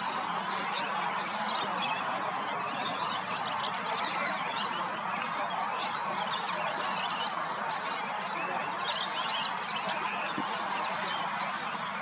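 Dense chorus of many birds calling: a steady din of squawks with short high chirps scattered throughout.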